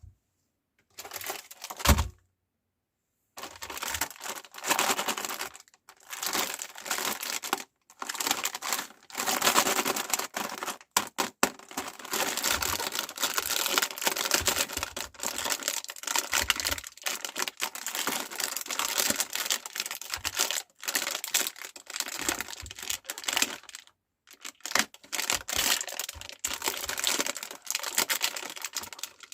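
Cookies being crushed in a meat grinder: a dense, irregular crunching and crackling with many sharp cracks. It starts with a thump and a short pause about two to three seconds in, then runs with brief gaps.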